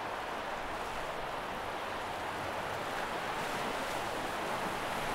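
Sea water lapping and washing at the surface, a steady soft hiss with no distinct breaking waves.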